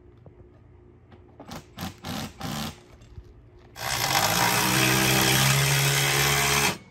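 Power drill: three short trigger pulls about a second and a half in, then a run of about three seconds that stops suddenly near the end.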